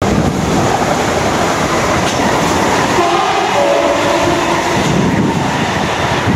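Two Siemens Desiro electric multiple units, a Class 450 and a Class 444, passing close by on the main line: a steady rush of train noise with a short pitched tone about three seconds in.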